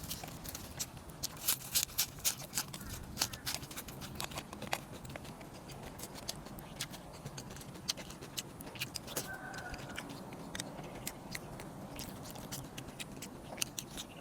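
Close-up eating sounds: crunching and chewing, with a quick cluster of crisp clicks in the first few seconds and scattered ones after. There is a short faint high-pitched sound about nine seconds in.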